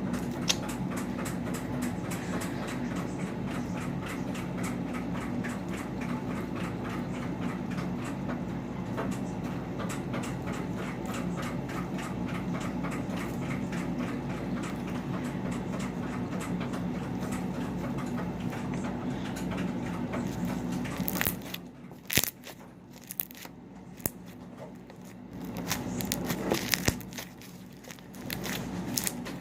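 Slime being kneaded and stretched by hand, with a dense run of small clicks and crackles, over a steady low hum. About 21 seconds in the hum stops, leaving sparser, sharper clicks and pops from the slime.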